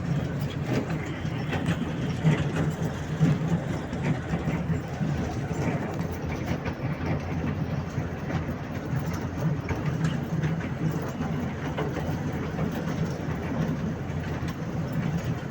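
Park toy train running along its track: a steady low engine hum with the wheels clicking over the rails.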